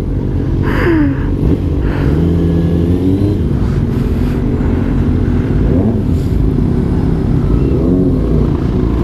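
Sport motorcycle engine running through an aftermarket exhaust while riding. Its note rises and falls several times with the throttle.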